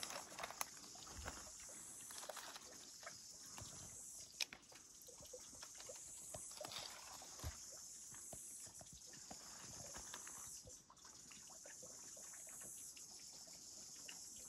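Footsteps crunching and rustling on leaf litter and twigs, with scattered short snaps, over a steady high hiss of forest ambience.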